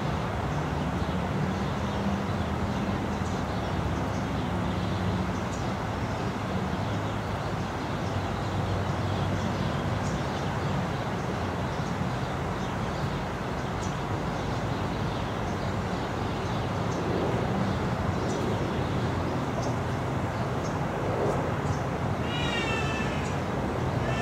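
Steady low mechanical hum under background noise. Near the end comes a quick run of high, short chirping calls stepping down in pitch, fitting a cotton-top tamarin's chirps.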